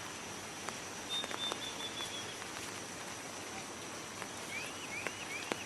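Natural outdoor ambience: a steady hiss with a constant high tone, and small birds calling, a short run of high notes about a second in, then a series of quick rising chirps near the end, with scattered light ticks.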